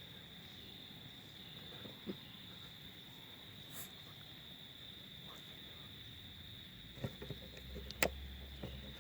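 Steady high-pitched insect chirring, typical of crickets in the woods, with a few scattered clicks and rustles, the sharpest about eight seconds in.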